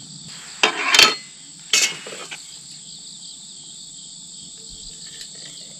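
A steady high-pitched insect chorus. Two short handling noises, the louder about a second in and a smaller one just under two seconds in.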